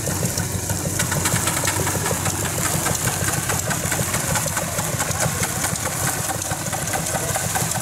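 An engine idling steadily: a low hum with a fast, even ticking over it.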